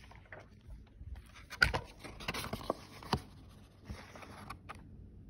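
Rustling, with a few light knocks, as a hardcover book is handled and its pages opened.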